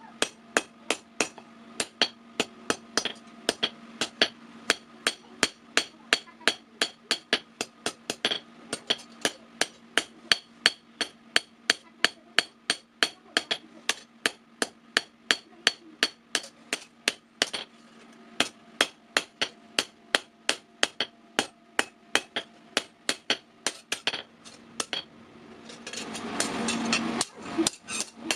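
Hand hammer striking steel on an anvil while a sickle blade is forged: steady, even blows at about three a second over a constant low hum. The blows stop near the end and a louder rushing noise takes over.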